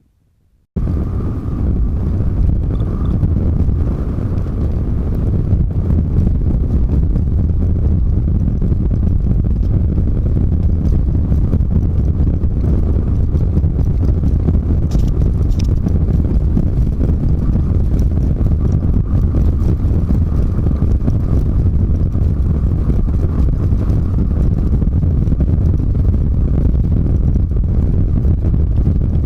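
Semi truck driving at steady speed: even engine and road noise that starts abruptly about a second in.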